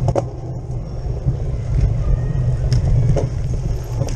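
Steady low rumble of wind and ground vibration picked up by a camera mounted on the handlebars of a cyclocross bike ridden fast over rough ground, with scattered clicks and rattles from the bike.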